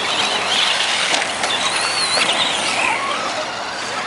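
Radio-controlled trucks driving on a dirt track: motors whining up and down in pitch as the throttle changes, over a steady rush of tyres on loose dirt.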